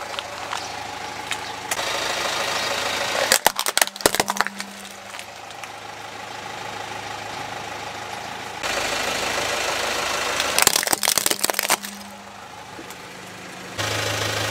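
Car tyre rolling over and crushing plastic toys on concrete: two bursts of cracking and crunching plastic, about three and a half seconds in and again near eleven seconds, over the steady hum of the car's idling engine.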